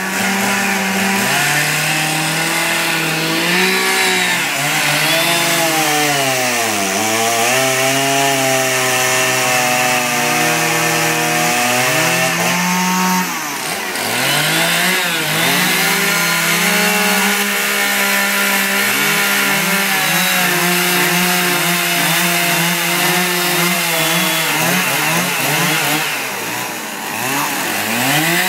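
Two-stroke chainsaw running at high revs while carving wood. Its pitch sags and recovers several times, most deeply about 7, 14 and 27 seconds in, as the chain bites into the wood and is eased off.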